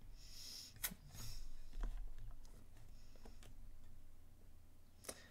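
Quiet room tone with a couple of faint sharp clicks, one a little under a second in and one near the end, and a brief soft hiss at the start.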